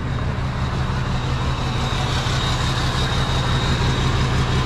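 Rollback tow truck's engine idling steadily, with a faint high whine over it from about two seconds in.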